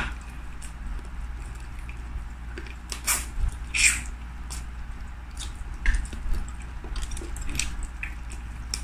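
Close-up eating sounds from a person eating chicken by hand: a few short, wet mouth smacks and clicks from chewing, scattered over a low steady hum.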